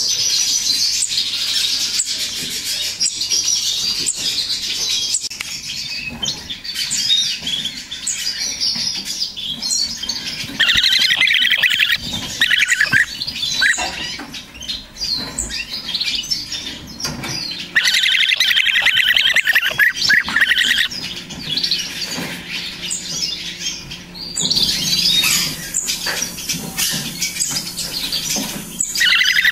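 Several European bee-eater nestlings giving their rolling "gyurgyu" food-begging calls. The calls run on throughout, swelling into louder bouts of fast trills about ten, eighteen and twenty-five seconds in, and again near the end.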